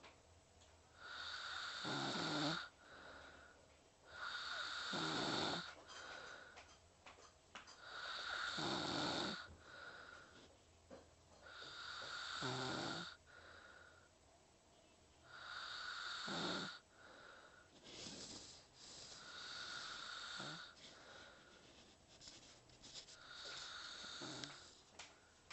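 Slow, even snoring from someone asleep, about one breath every three to four seconds, seven in all. Each snore carries a whistling note, often trailed by a shorter whistle.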